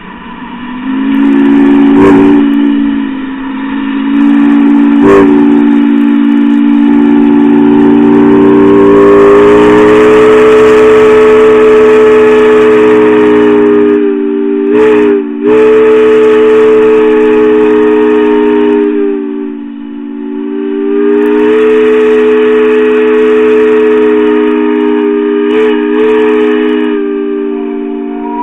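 Multi-tone steam whistle blowing very loudly in long blasts, a chord of several steady notes that swells in about a second in. It breaks off briefly about halfway through, dips again a few seconds later, then sounds on almost to the end.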